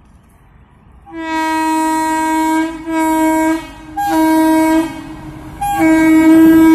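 An approaching WAP-7 electric locomotive sounding its horn in four blasts of one steady note. The first starts about a second in and is the longest, and the last is still sounding at the end.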